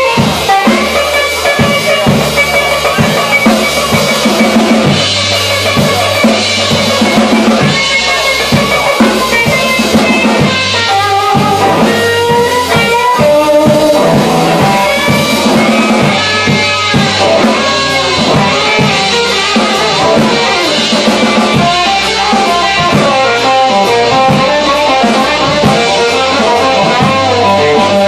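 Live blues band playing: Telecaster-style electric guitar lines over bass, drum kit and acoustic guitar, with a steady beat.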